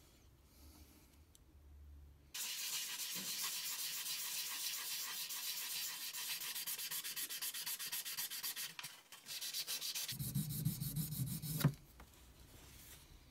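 Rapid rubbing strokes of abrasive on the steel of vintage vernier calipers, as when sanding or polishing them. The strokes start abruptly about two seconds in and stop near the end, with a low hum joining for their last second and a half.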